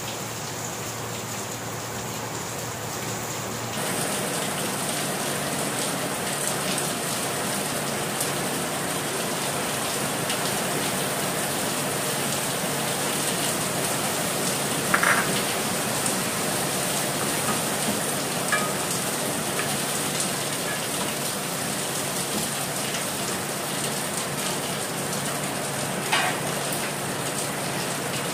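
Squid with sautéed onion, garlic and tomato sizzling in hot oil in a metal wok: a steady frying hiss that gets louder about four seconds in. A wooden spoon knocks against the pan a few times.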